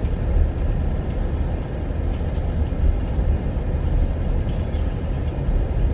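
Blizzard wind buffeting a car: a steady, loud low rumble with small surges, strong enough to rock the car.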